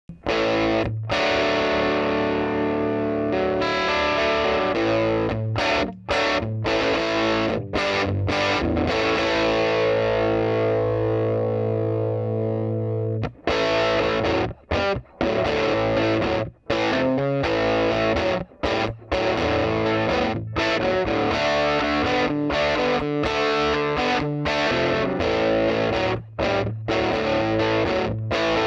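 Distorted electric guitar played through the Evil Robot's Channel B overdrive: chords and riffs, with one long chord held and fading in the middle, then short chopped chords broken by brief gaps.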